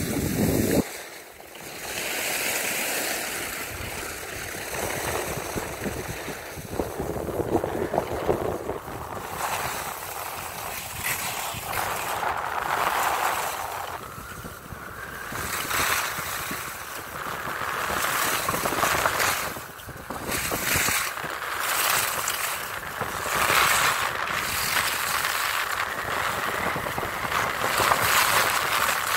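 Skis hissing and scraping over packed glacier snow during a descent, with wind rushing over the microphone. The sound swells and fades every few seconds.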